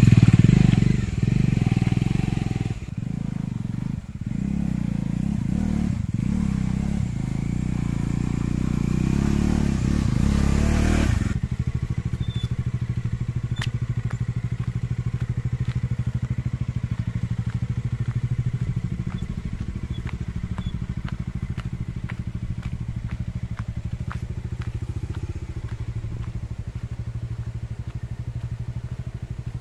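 Bajaj Dominar 400's single-cylinder engine revving hard as the motorcycle climbs a steep, muddy dirt slope. About eleven seconds in, the sound changes suddenly to the engine running steadily at lower revs, with scattered faint clicks.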